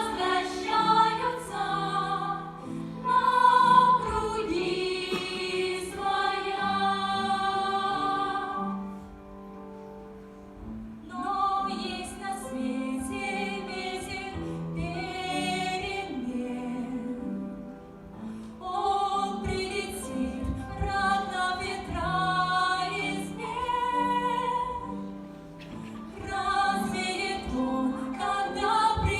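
Voices singing a song with musical backing, holding long wavering notes phrase by phrase, with a few short pauses between phrases.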